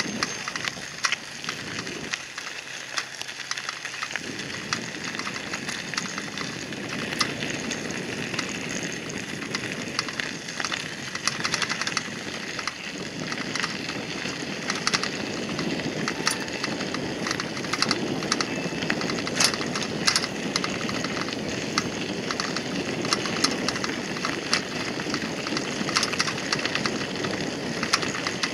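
Bicycle tyres rolling over a gravel path: a steady crunching with many small clicks of stones under the wheels.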